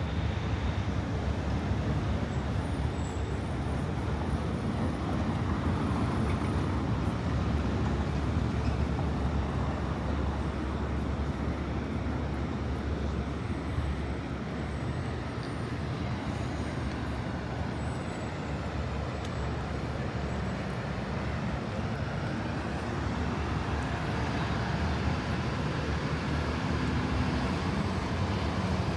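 Steady city street traffic: a continuous low rumble of passing motor vehicles, with no single event standing out.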